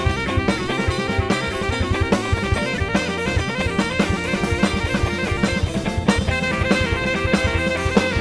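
Live instrumental band music: a drum kit playing a busy groove with bass drum and snare, under bass guitar, electric guitar and saxophone.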